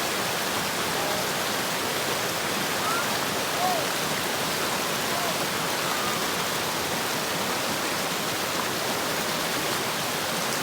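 River water rushing over rocks: a steady, even hiss of flowing water.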